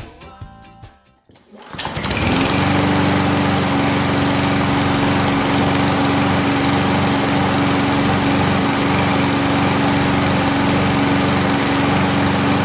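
Lawn-Boy mower's Kohler engine catching about two seconds in and then running steadily at an even speed, now starting after its carburetor's clogged main jet was cleaned.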